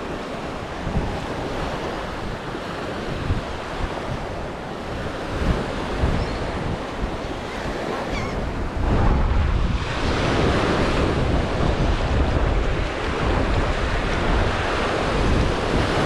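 Gulf of Mexico surf washing onto the beach, with wind buffeting the microphone in low rumbles. The sound grows louder about nine seconds in.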